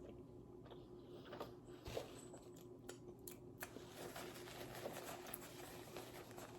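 Faint eating sounds: soft chewing, clicks and rustles, scattered and irregular, over a steady low electrical hum.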